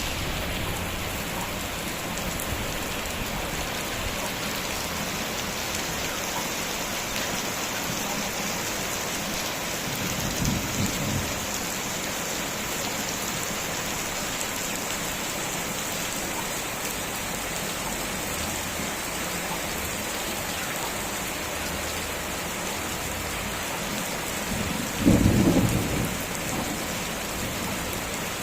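Heavy rain falling steadily, with two short low rumbles of thunder, one about ten seconds in and a louder one near the end.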